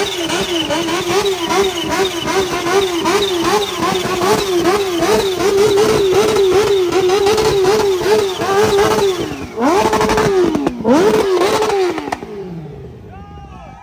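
Kawasaki Ninja H2's supercharged inline-four revved hard in quick repeated throttle blips. Near the end come two longer, higher revs, then the engine note falls away.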